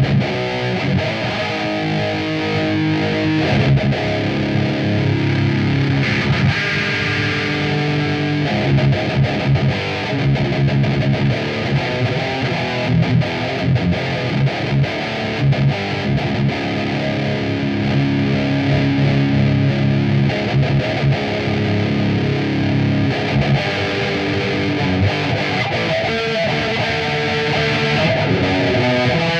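Music with a heavily distorted electric guitar playing chords and sustained notes steadily throughout.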